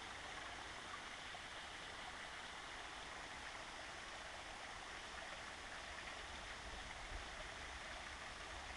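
Steady rush of flowing stream water, with an uneven low rumble underneath.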